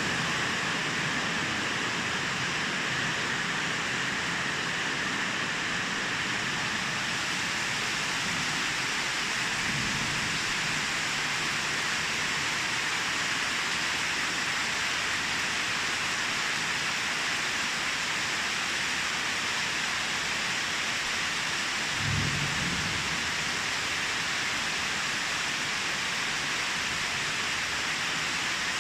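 Steady rain falling, a dense even hiss of drops. Two brief low rumbles come through, about a third of the way in and again about three-quarters of the way in.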